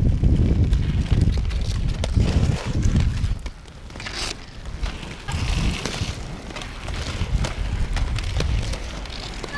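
Inline skate wheels rolling on asphalt with wind rumbling on the microphone of a skater-carried camera, heavier in the first few seconds, with scattered sharp clacks of plastic floorball sticks and ball.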